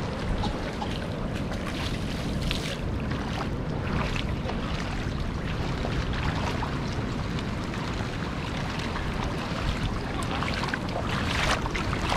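Steady rain falling onto flooded ground and standing puddles, with wind buffeting the microphone.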